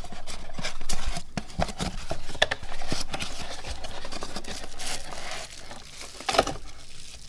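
A small cardboard box being opened by hand, its flaps scraping, rubbing and tapping in an irregular string of sounds. The loudest tap comes about six seconds in.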